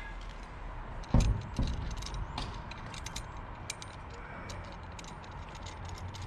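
Metal G-clamp being handled and fitted against brickwork: light metallic clinks and rattles, with one heavy knock about a second in.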